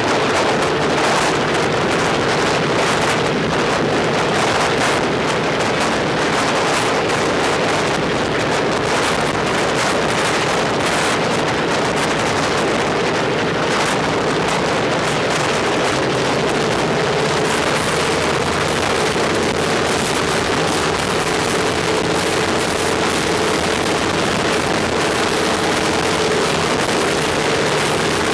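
Il-14T's Shvetsov ASh-82T radial piston engine running steadily on the ground.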